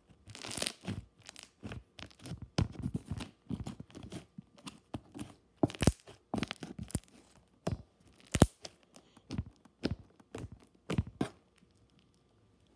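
Slime being squished and stretched by hand, making irregular sticky pops and crackling clicks that stop near the end.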